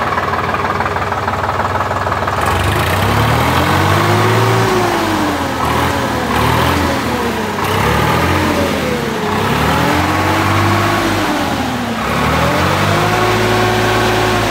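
Preet 3549 tractor's three-cylinder diesel engine idling, then revved up and let back down about four times, each rev rising and falling over two to three seconds.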